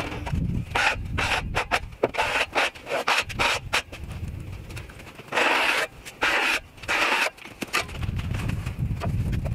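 A run of short, irregular scraping strokes on wood, with a few longer strokes between five and seven seconds in.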